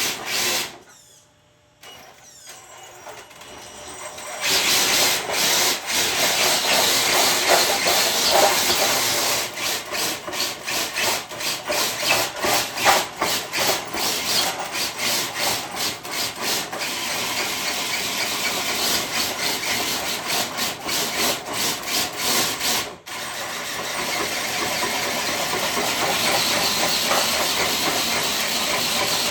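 RC monster truck pulling a dead-weight sled: its drivetrain runs with a hissing scrape of sled and tyres over the ground. It picks up after a short lull a few seconds in and breaks off briefly about 23 seconds in before running on steadily.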